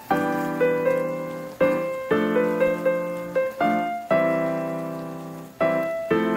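Background piano music: unhurried notes and chords, each struck and left to ring out and fade before the next.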